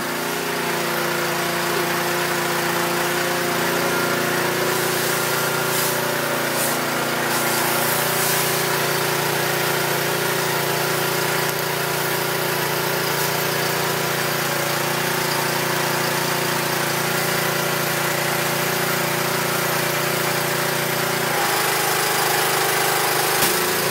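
Pressure washer running steadily, its spray hissing onto a wooden deck. The machine's tone shifts a little about 21 seconds in.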